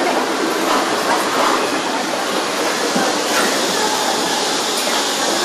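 Steady, even machinery noise of a car assembly hall, with conveyors and line equipment running.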